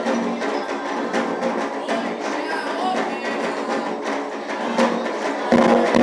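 Afro-Brazilian ritual music: hand drums beating steadily under group singing, growing louder about five and a half seconds in.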